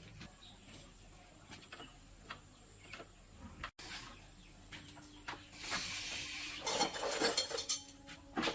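Hand work on metal parts: scattered light clinks and taps, then a louder stretch of scraping in the last few seconds.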